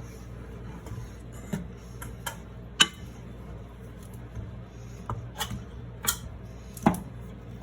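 Irregular sharp clicks and light knocks of kitchen utensils on cookware, about seven in all, over a steady low hum.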